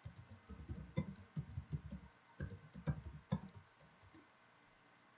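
Typing on a computer keyboard: a quick run of faint key clicks that stops after about three and a half seconds.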